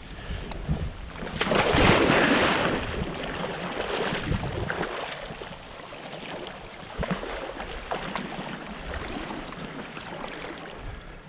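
Stream water running and splashing, with a louder splash about two seconds in.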